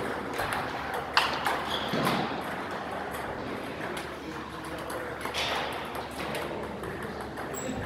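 Table tennis ball clicking off the bats and the table at the end of a rally, the sharpest click about a second in, followed by a few scattered ball taps and bounces.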